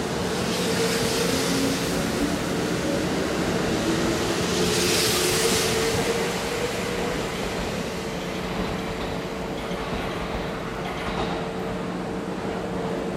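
Kintetsu 21000 series Urban Liner plus electric train pulling out and running away along the platform. Its motor whine rises in pitch at first, over a steady hum and the running noise of the cars, with a brief hiss about five seconds in.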